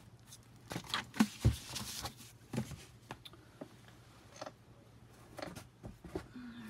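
Hardcover books being handled and set down on a laminate countertop: a few dull knocks and thumps, the loudest about a second and a half in, over a faint steady low hum.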